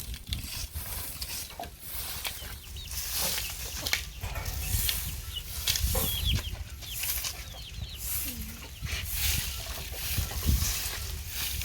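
Chickens clucking, with short high chirps a few seconds in, over a low steady rumble.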